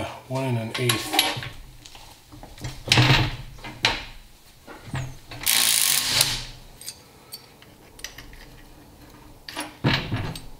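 Cordless impact wrench hammering for under a second about halfway through, spinning off the 1-1/8 inch front output yoke nut of a Dana 20 transfer case. A few metal clanks of tools being handled come before it, and a heavier knock follows near the end.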